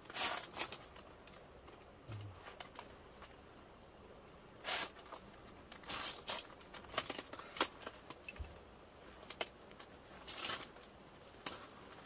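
Faux-fur cover being fitted onto a folding camp chair: fabric rustling and brushing in short bursts a few seconds apart.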